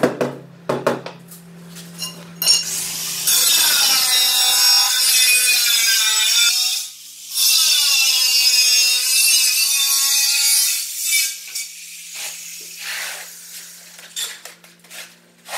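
A few sharp knocks, then a steel tiling trowel scraping over the concrete floor and tile adhesive in two long grating strokes of about three seconds each, with a wavering squeal; lighter scrapes and taps follow near the end.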